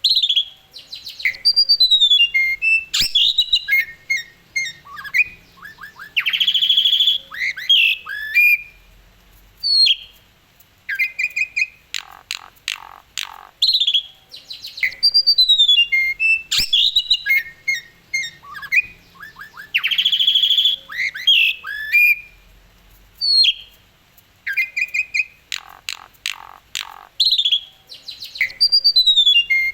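Asian pied starling (jalak suren) singing a long, varied song of clear rising and falling whistles, harsh squawking notes and rapid chattering trills. The same song sequence repeats about every 14 seconds.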